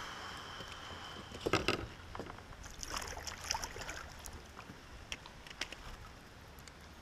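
Kayak on the water: light splashing with a few knocks against the hull, the loudest cluster about a second and a half in and another spell of splashing around three seconds in.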